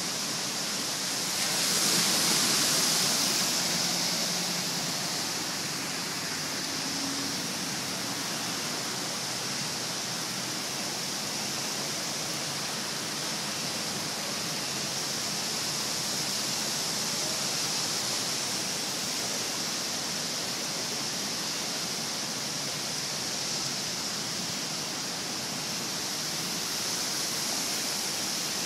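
Steady rushing of storm floodwater pouring across a street and surging up from the roadway, a little louder for a couple of seconds near the start.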